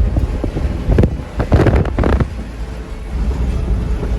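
Wind buffeting the microphone in gusts, the strongest between about one and two seconds in, over a steady low rumble.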